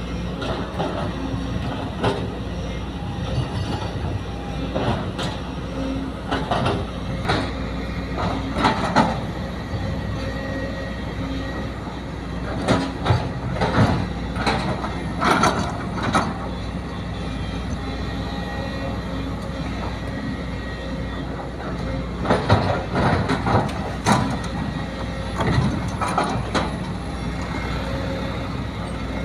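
A Sumitomo hydraulic excavator's diesel engine runs steadily, with repeated spells of clanking and scraping as its bucket digs soil and loads it into a dump truck.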